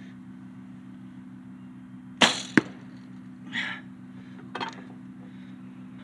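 A Bear compound bow shot: the string release a little over two seconds in, then a second sharp crack about a third of a second later as the arrow strikes the target. A brief rustle and a small click follow as the bow is handled.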